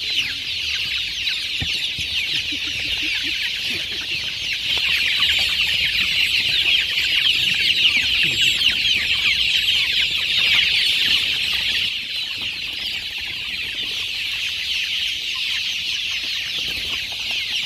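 A large flock of young kampung (Indonesian native village) chickens peeping all at once, many high calls overlapping in a dense, continuous chorus. It grows louder a few seconds in and eases back about twelve seconds in.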